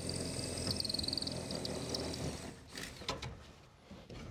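Cordless drill boring a pilot hole through a wooden two-by-four cleat, its motor whining steadily, then stopping about two and a half seconds in. A few light knocks follow.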